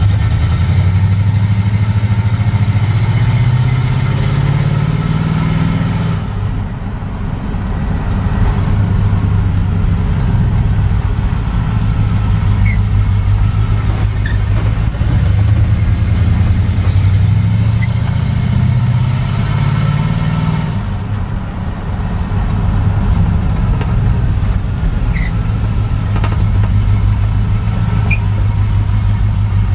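A 1956 Dodge pickup's 350 crate V8, rated 330 hp, heard from inside the cab while driving. The engine note climbs as it accelerates, then drops off about six seconds in. It climbs again and drops off just after twenty seconds, then runs steadily.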